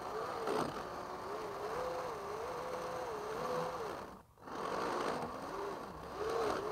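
Traxxas X-Maxx RC truck's electric motor whining, its pitch stepping up and down with the throttle while the truck barely moves: the slipper clutch is slipping and the drive is not reaching the wheels. The sound cuts out briefly about four seconds in.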